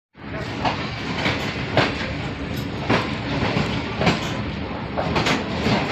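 Train passing, its wheels clattering over the rail joints: a steady rumble with sharp clacks every second or so.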